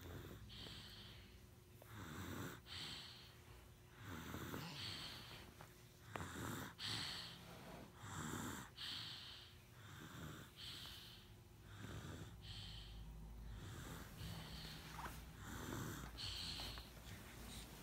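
A sleeping pet snoring, with a rasping breath about every two seconds.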